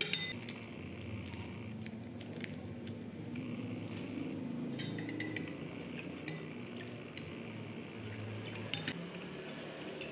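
Metal spoon stirring a runny tomato and chili sauce mixture in a glass bowl, with scattered light clinks of the spoon against the glass and a wet squish of the liquid.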